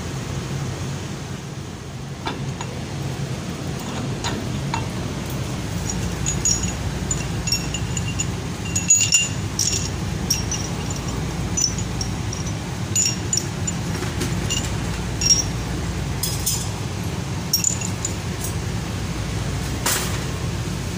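Steel flange bolts and nuts clinking against each other and the concrete floor as they are handled and piled: a series of short, ringing metallic clinks, over a steady low hum.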